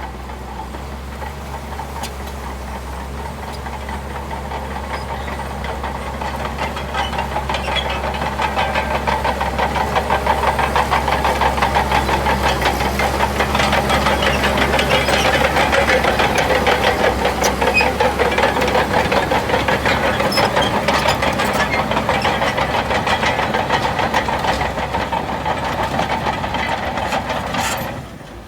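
Heavy diesel earthmoving-machine engine running under load with a fast, even throb, growing louder a few seconds in and easing off near the end, where it drops away suddenly.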